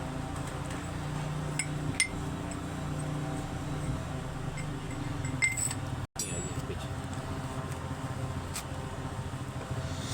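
A few sharp metallic clinks of tools or parts, spaced seconds apart, over a steady low hum. The sound cuts out for an instant about six seconds in.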